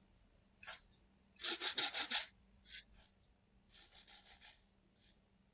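Green Scotch-Brite abrasive pad rubbed back and forth in quick scratchy strokes. It starts with a fast run of about eight strokes, and later comes a softer run of about six.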